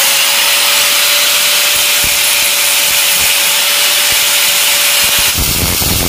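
Electric angle grinder running at steady full speed with a high whine and a grinding hiss. A little over five seconds in, the whine drops out and a rougher grinding takes over as the disc grinds the splined steel shaft of a washing-machine gearbox, throwing sparks.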